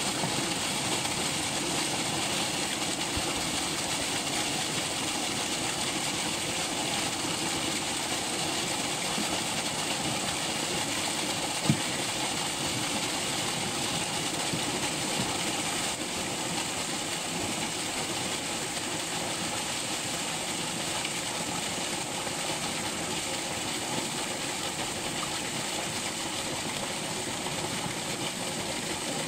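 Water and live fish gushing steadily out of a fish-stocking truck's discharge chute and splashing into a lake, the flow easing slightly toward the end. A single sharp click a little before halfway.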